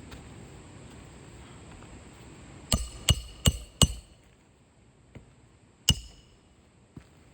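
Hand hammer driving roofing nails: four quick ringing strikes about three seconds in, then one more strike about two seconds later, with a few lighter taps.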